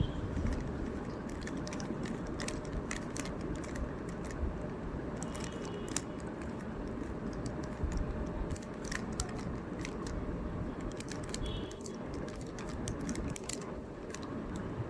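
Plastic Rubik's Cube layers being twisted by hand, giving an irregular scatter of short clicks over steady background noise.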